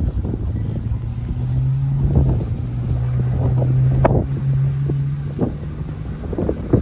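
Wind rumbling on the microphone, with a passing motor vehicle's engine hum that comes in about a second and a half in and holds steady for about four seconds.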